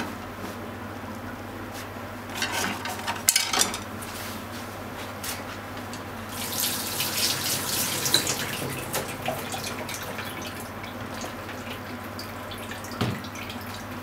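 Kitchen tap water running briefly into a stainless steel sink, with clicks and knocks of handling before it and a single thump near the end.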